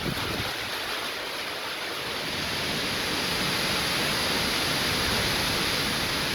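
Heavy rain pouring down in a steady, dense hiss that grows a little louder partway through.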